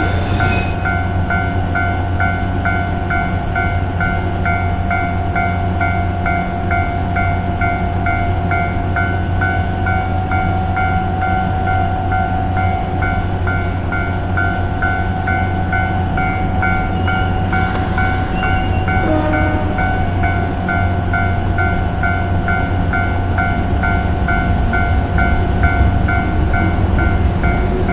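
Level-crossing warning bell ringing in a fast, even, unbroken pattern at two pitches, over a steady tone and a low hum. A short hiss comes about two-thirds of the way through.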